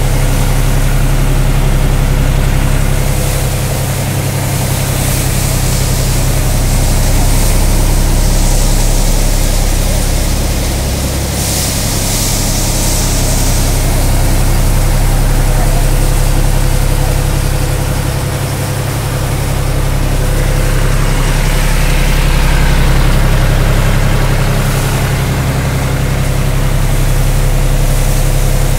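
Sonalika DI-42 RX Sikandar tractor's diesel engine running steadily at working speed, driving a thresher through a long belt. The combined drone swells and eases slowly every several seconds.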